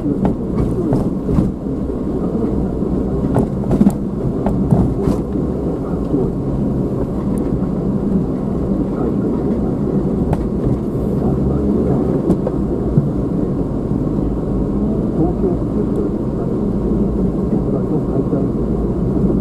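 Car driving, heard from inside the cabin: a steady low rumble of road and engine noise, with a few sharp clicks or knocks in the first five seconds.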